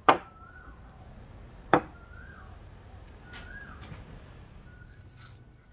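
Two sharp knocks about a second and a half apart: a Siamese rosewood block and a steel hatchet head being set down on a wooden tabletop. Birds chirp faintly in the background.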